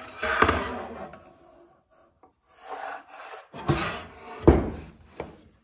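A solid-surface (Corian) slab scraping as it is slid and turned on the workbench, then tipped up and set down with two dull knocks, the louder one about four and a half seconds in.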